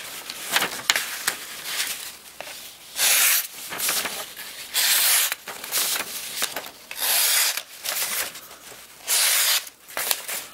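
SOG SP-23 'Sogzilla' folding knife slicing through a hand-held sheet of paper: four slicing strokes about two seconds apart, each under a second long, with paper rustling between them. The edge cuts cleanly, a test of its sharpness.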